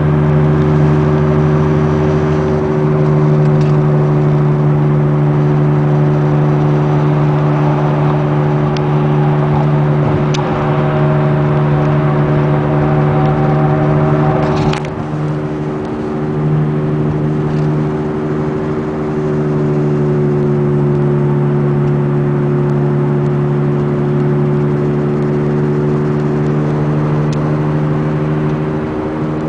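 Loud, steady droning hum inside the cabin of a 2002 VW Beetle TDI driving at speed, from a bad passenger-side front wheel bearing. About halfway through there is a short click and the drone dips briefly, then it carries on.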